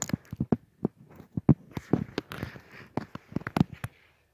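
A quick, irregular series of sharp knocks and crunches, some with a dull thud, that stops shortly before the end.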